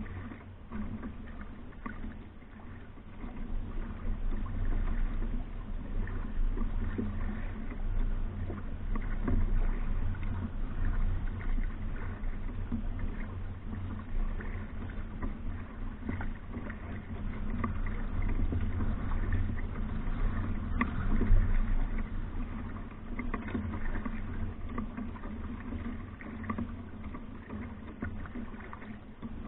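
A Hornbeck New Trick solo canoe being paddled: paddle strokes and water washing along the hull, swelling and easing every few seconds, over a low rumble.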